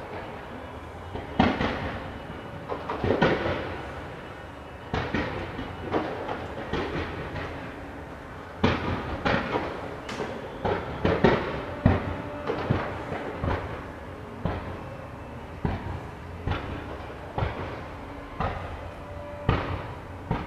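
Aerial fireworks going off in an irregular string of sharp bangs and crackles over a continuous rumble. The loudest bangs come about a second and a half in, around three seconds in, and in a dense cluster between about nine and twelve seconds in.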